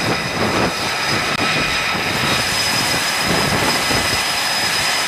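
Carrier-deck jet aircraft engines running: a steady, loud roar with a high, even whine over an uneven rumble.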